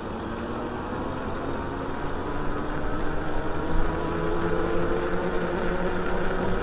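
Electric bike riding along pavement: a steady rush of wind and tyre noise with a faint motor whine that grows louder and rises slightly in pitch over the last few seconds as the bike picks up speed.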